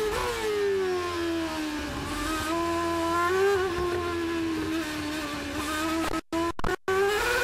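Ferrari F138's 2.4-litre V8 Formula One engine heard onboard. The revs fall as the car brakes hard and downshifts to second gear, hold low and fairly steady, then start to rise near the end as the throttle opens. The sound cuts out for a split second a few times about six seconds in.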